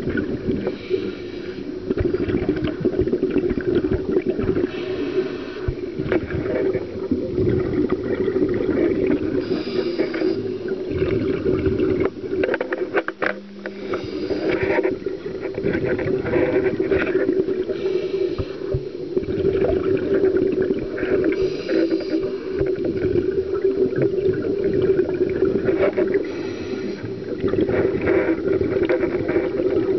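Scuba diver's regulator breathing, heard muffled through the camera's underwater housing. Under a constant bubbling rumble, a brief hiss comes about every four seconds with each breath.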